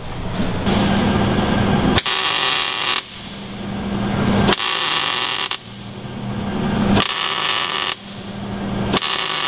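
MIG welder arc crackling and sizzling in four short bursts of about a second each, laying stitch welds on steel, with a lower hum building between the bursts.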